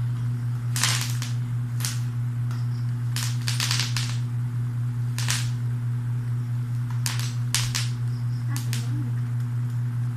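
Sharp plastic clicks and clacks, about ten of them, some in quick clusters, as an action camera is handled and fitted into its plastic handlebar clip mount, over a steady low hum.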